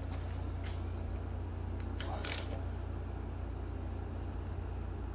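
A big-block Chevy engine is being turned over by hand with a wrench on the crank. It gives a few faint clicks and a sharper metal clink about two seconds in, over a steady low hum.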